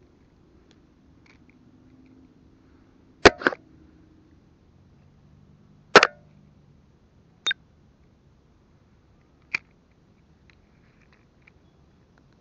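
Handling clicks and knocks from a spinning reel and fishing line being worked close to the camera while a tangled line is sorted out: five short sharp knocks, the loudest a double knock about three seconds in and a single one about six seconds in.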